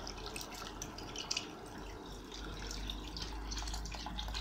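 Water poured from a plastic jug into a stainless steel pot of toasted rice and small pasta, splashing into the grains.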